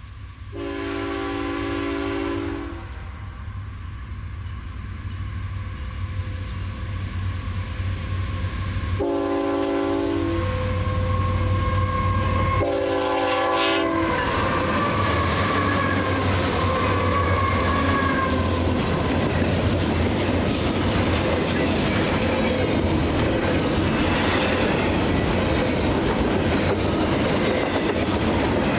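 A Union Pacific freight train's locomotive horn sounds three blasts as the train approaches: two long ones and a shorter third. Then the diesel locomotives pass close by, and a long string of double-stack container cars follows with a steady rumble and the clatter of wheels on the rails.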